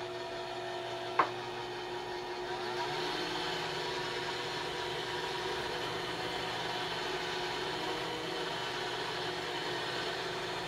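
Sunbeam Mixmaster stand mixer running steadily, its beaters whipping butter and cream cheese in a stainless steel bowl. A single sharp click comes about a second in, and the motor gets a little louder about three seconds in.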